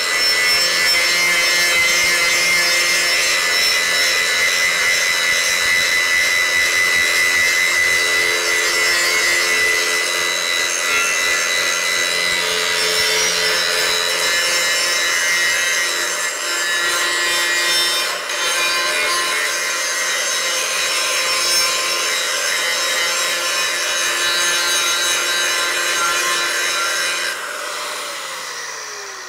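A 1.7 kW angle grinder with a 125 mm Norton Quantum 3 grinding disc grinds mill scale and paint off a steel plate, a loud, steady, harsh grinding with a high whine. Near the end the disc leaves the steel and the grinder is switched off, its whine falling as it spins down.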